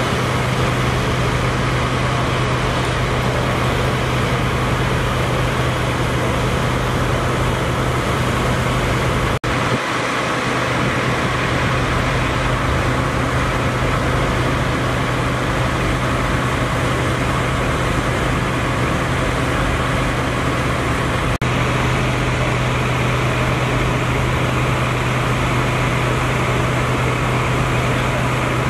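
Steady drone of an idling engine with a constant low hum, unchanging throughout, and two very brief dropouts, about nine and a half and twenty-one seconds in.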